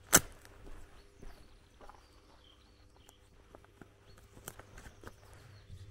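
Footsteps of a person walking on grass and a dirt path, with one loud sharp knock just after the start. A small bird chirps faintly a few times near the middle.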